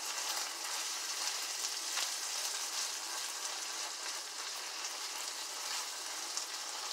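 Ground turkey sizzling steadily in a non-stick frying pan as it is stirred and broken up with a utensil.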